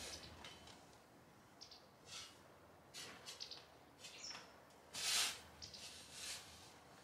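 Faint short bird chirps, one falling in pitch, over brief rustling and handling noises; the loudest is a swish about five seconds in.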